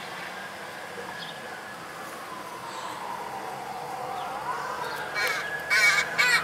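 Fire engine siren wailing, its pitch sliding slowly down, back up about four seconds in, then down again. Near the end, crows caw several times, louder than the siren.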